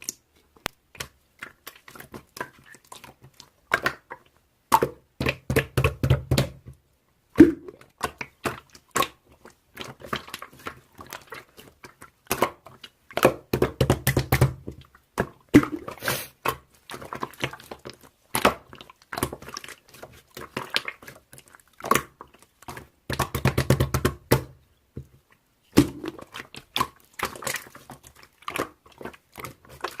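Slime being squeezed, poked and folded by hand, with many sticky pops and clicks, and three longer runs of denser squishing.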